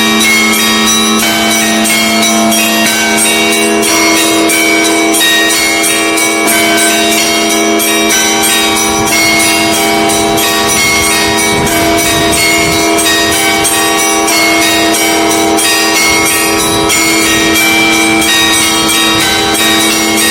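Russian Orthodox church bells pealing: small bells struck rapidly and continuously over the steady hum of larger, deeper bells.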